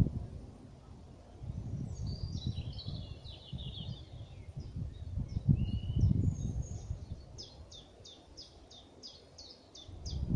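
Small songbirds singing in woodland: a short run of falling notes a couple of seconds in, then a fast, even series of sharp repeated notes at about four a second through the second half. Underneath is an uneven low rumble on the microphone, loudest about six seconds in.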